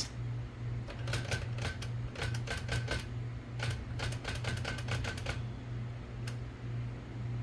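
Typewriter keys struck in three quick runs of sharp metallic clacks, then one last clack, over a low steady hum.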